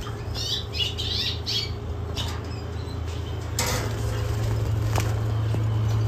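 Caged canaries chirping in quick short calls about the first second and a half, then scattered wing flutters and small cage clicks, over a steady low hum.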